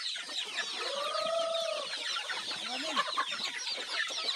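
A flock of free-range chickens clucking and chirping in a dense, overlapping chatter as they crowd in to feed, with one longer call that rises and falls about a second in.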